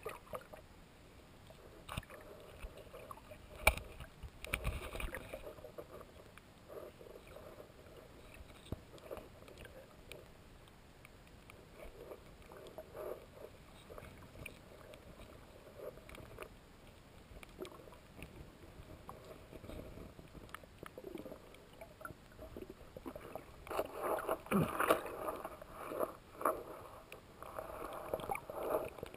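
Muffled underwater sound picked up by a submerged camera: faint water hiss with scattered clicks and knocks, growing louder with sloshing and knocking near the end as a hand handles the camera and picks up a small creature.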